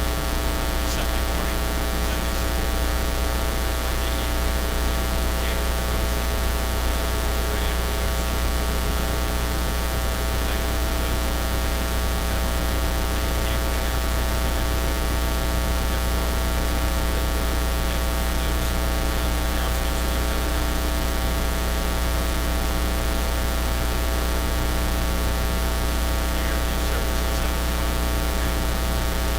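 Loud, steady electrical mains hum and buzz with hiss in the livestream's audio feed, unchanging throughout: an audio fault rather than any sound in the room.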